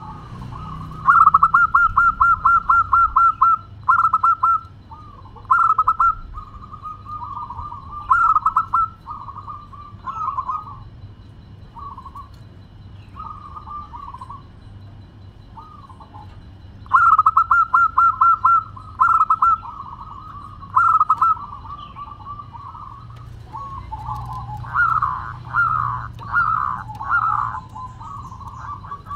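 Zebra dove (perkutut) singing its cooing song. A fast run of short staccato coos lasts about two seconds and is followed by a string of shorter phrases. A second fast run comes about sixteen seconds later, and near the end there are louder coos that fall in pitch.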